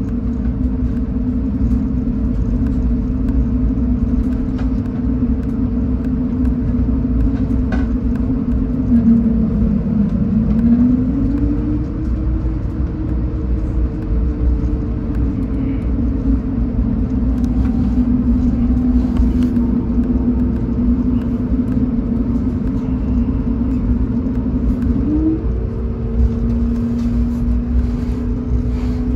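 Cabin sound of an Airbus A220-100 taxiing: a steady rumble under the hum of its Pratt & Whitney PW1000G geared turbofan engines. The engine tone dips and then rises about ten seconds in, and jumps up briefly near twenty-five seconds, as thrust is adjusted.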